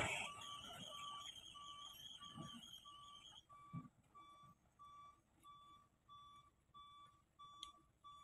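Faint, steady beeping of a truck's reversing alarm, about three short high beeps a second, with a few dull thuds in between.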